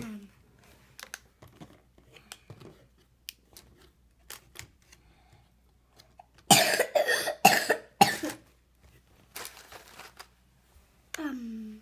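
A person coughing three times in quick succession about halfway through, amid faint scattered clicks. Near the end a voice gives a short falling vocal sound.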